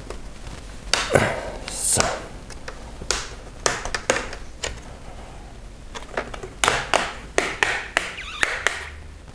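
Plastic screen bezel of an Acer Aspire 3 A317 laptop being pried off by hand, its retaining clips snapping loose in a series of sharp clicks and cracks, about a dozen in all, loudest about one to two seconds in.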